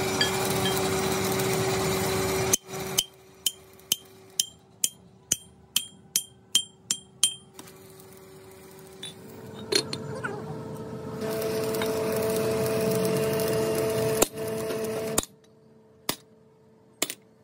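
Hammer blows on steel fitting a bearing race into a truck wheel hub: about a dozen sharp, ringing metal strikes at two to three a second, with a few single strikes near the end. A steady engine-like hum runs at the start and again in the later part.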